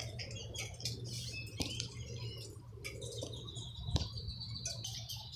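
Outdoor ambience: birds chirping, joined about three seconds in by a steady high insect-like trill, with a sharp click about four seconds in.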